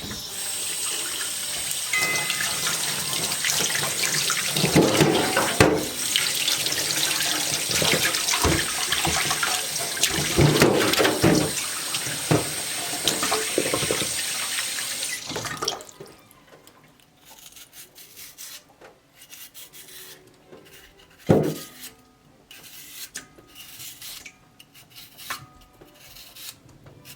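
Kitchen tap running into a sink, the water's splashing changing now and then as something is held under it, then turned off abruptly about halfway through. Afterwards only quiet handling knocks, with one sharper knock.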